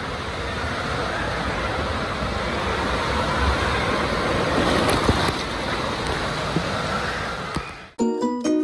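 Water rushing down a water slide flume with the rider, a steady, even rush that builds slightly as the ride goes on. About eight seconds in it cuts off suddenly and plucked background music begins.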